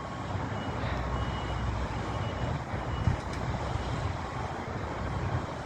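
Construction-site machinery running with a steady low rumble, and the faint intermittent beeping of a vehicle's reversing alarm. There is a short knock about three seconds in.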